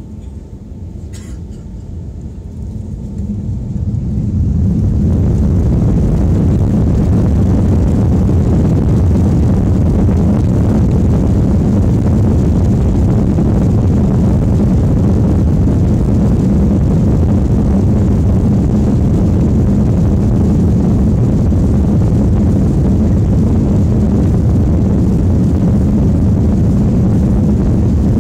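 Airbus A330-300 jet engines spooling up to takeoff thrust, heard from inside the passenger cabin: the noise swells over the first few seconds, then holds as a loud, steady, deep rumble through the takeoff roll.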